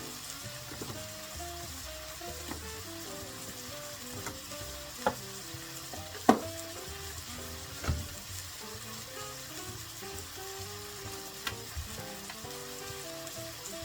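Food sizzling as it fries in a pan while being stirred. A utensil knocks against the pan a few times around the middle, over a quiet background melody.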